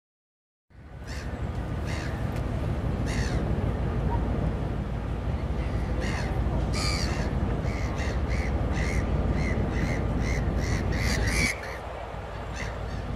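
Gulls calling: scattered calls, then a quick run of about two to three calls a second in the second half. Under them a steady low rumble that drops off near the end.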